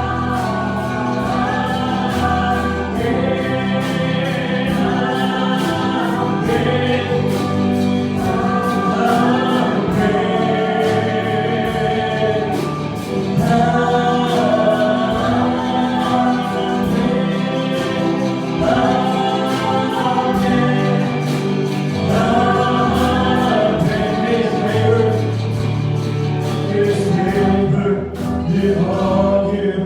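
Gospel music with a choir singing over instrumental accompaniment and a steady beat.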